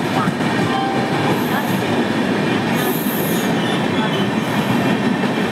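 LHB passenger coaches of a Rajdhani Express rolling past at close range: a steady rumble of wheels on rail, with short high-pitched wheel squeals three times.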